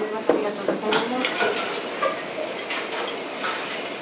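Forks clinking and scraping on plates as several people eat pasta, with scattered sharp clinks.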